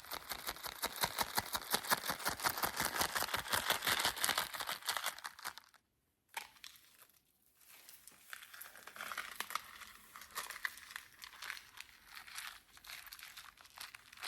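Packaging being handled and crumpled: dense, rapid crinkling and crackling, stopping briefly about six seconds in, then going on more softly.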